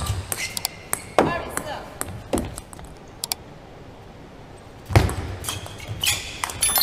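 Table tennis rally: a plastic ball clicking off rubber-faced paddles and bouncing on the table. There is a series of sharp knocks over the first couple of seconds, then a quieter stretch. Play starts again with a loud hit about five seconds in and more quick knocks.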